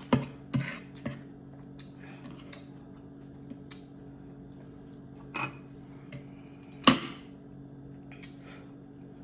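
Cutlery clinking against a dinner plate: a few separate sharp clicks, the loudest about seven seconds in, over a faint steady low hum.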